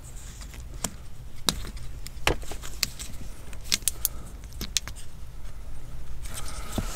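Plastic wiring-harness connectors being handled and pushed together, giving a series of sharp, irregular clicks and rattles, over a steady low hum.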